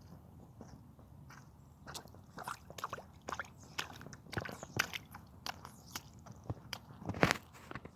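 A toddler's squeaky sneakers squeaking and squishing with each step, their squeakers soaked from a puddle. A run of quick squeaks and squelchy steps starts about two seconds in, with the loudest one near the end.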